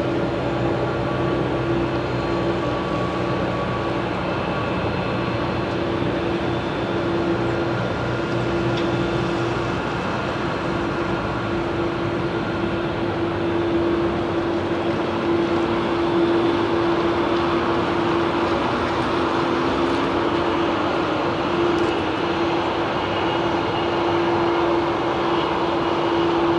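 Boeing 787 Dreamliner's jet engine running on the ground during its initial engine run: a steady whine over a rushing noise that grows stronger about halfway through as the engine is run up.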